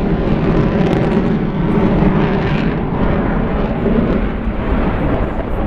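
Eurofighter Typhoon's twin EJ200 turbofan jet engines, a loud steady jet roar as the fighter flies its display.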